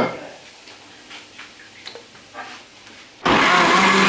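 Light handling taps and clicks as a banana is broken into a plastic blender jug, then about three seconds in a countertop jug blender switches on suddenly and runs steadily and loudly, blending a milk, banana and oat protein shake.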